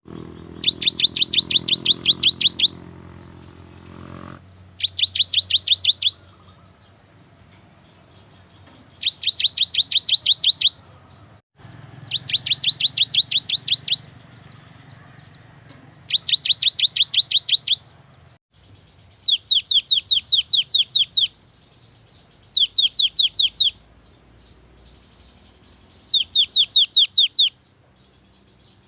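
A gelatik batu (cinereous tit) singing. It gives eight bouts of rapid, evenly repeated high notes, each bout about one to two seconds long, with short pauses between them.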